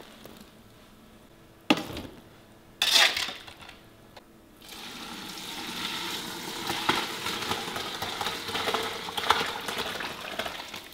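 A sharp knock and a short clatter of a metal pan being handled, then from about halfway through a steady splashing of hot meatball broth being poured from a large pan into a stainless steel pot.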